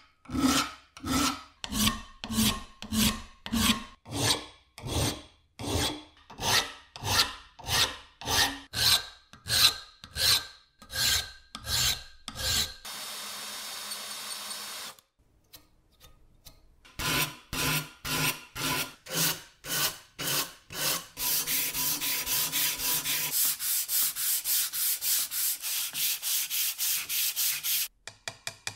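Hand file rasping on rough metal castings in steady strokes, about two a second, to remove casting marks. About halfway through, a drill runs steadily for a couple of seconds. Then the filing resumes, and near the end it turns to quicker, higher-pitched strokes of a round file, about three a second.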